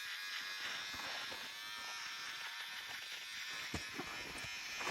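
Electric shaver buzzing steadily while shaving off a beard, with a couple of light knocks near the end.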